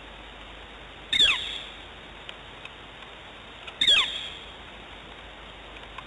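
Pan motor of a remote nest camera giving a short whine that falls steeply in pitch, twice, about two and a half seconds apart, over a steady hiss.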